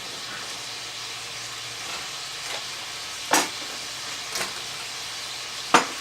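A knife chopping through zucchini onto a cutting board: two sharp knocks and a lighter one in the second half. Underneath is a steady sizzle of ground beef frying in a pan.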